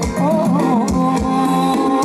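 Live band playing retro ramwong dance music: a steady drum beat of about three strokes a second under held chords, with a wavering melody line about half a second in.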